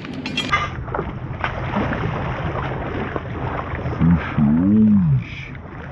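Steady low rumble of a small boat on open water, with wind on the microphone. About four seconds in, a person lets out a drawn-out wordless call that rises then falls in pitch.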